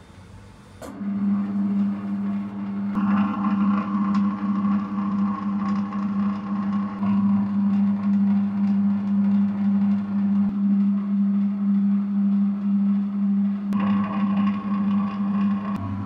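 Hengyue spiral dough mixer switching on about a second in, its electric motor running with a loud steady hum as the hook turns flour in the steel bowl. A higher whine joins twice.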